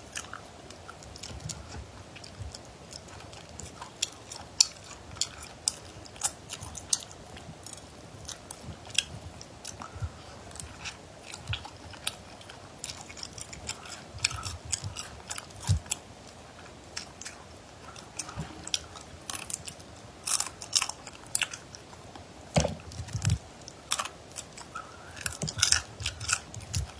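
Cooked crayfish shells cracking and crackling as they are broken apart and peeled by hand, mixed with close-up chewing. Irregular sharp clicks and cracks, coming thicker and louder in the second half.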